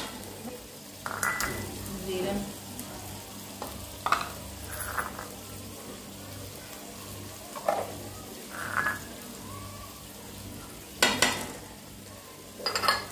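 Tomato-and-onion masala frying in ghee in an aluminium karahi, stirred with a wooden spoon, with sharp clatters and scrapes several times as glass spice bowls are tipped and knocked against the pan; the loudest clatters come near the end.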